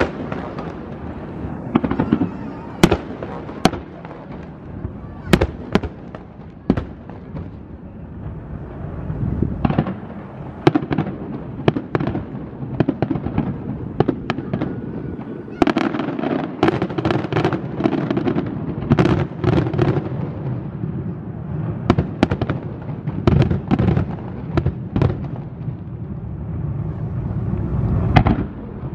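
Aerial fireworks display: shells bursting in sharp bangs with crackling, scattered at first and coming in dense volleys in the second half.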